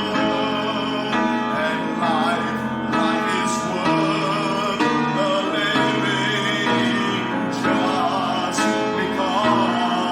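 Worship music played on instruments, with plucked strings, as sustained notes and chords that change every second or so.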